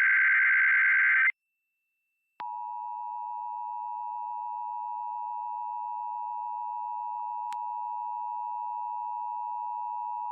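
Emergency Alert System test signal: a burst of the modem-like SAME header data ends about a second in. After a short gap, the EAS two-tone attention signal (853 and 960 Hz together) sounds steadily, with a single click partway through.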